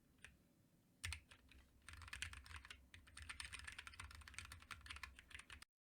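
Typing on a Helix split ortholinear mechanical keyboard with Kailh Box Heavy Burnt Orange tactile switches, DSA keycaps and a PLA case: quiet keystroke clicks. After a faint click and a single sharper key press in the first second or so, a quick run of typing sets in and cuts off abruptly near the end.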